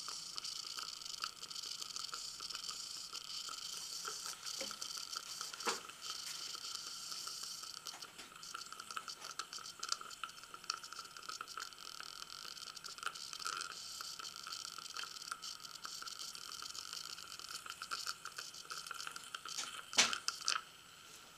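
Dental saliva ejector sucking in a patient's mouth: a steady hiss with constant fine crackling, and a couple of louder clicks near the end.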